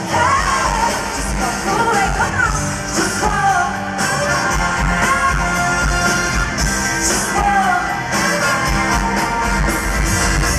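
Live rock band with a woman singing lead over electric guitar and drums, heard from the audience.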